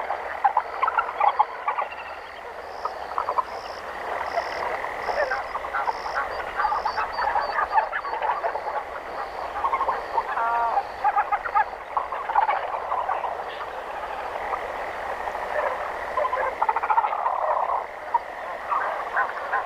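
Jungle ambience of a dense frog chorus: many frogs croaking at once in overlapping pulsed calls, with a steady high trill beneath and a series of short, repeated high chirps in the first third.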